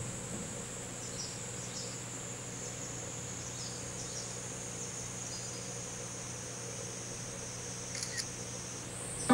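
Cicadas droning in a steady, high-pitched chorus, with a few faint short chirps and a low steady hum underneath.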